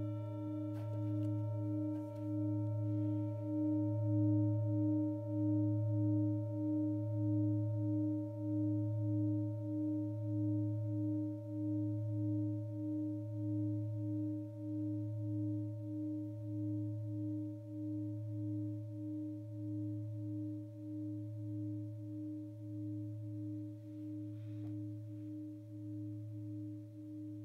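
Acama singing bowl with its handle ringing on after a single soft-mallet strike, slowly fading. Its two main tones, which a frequency meter reads at about 118 and 312 Hz, are a deep steady hum and a higher tone that pulses about one and a half times a second.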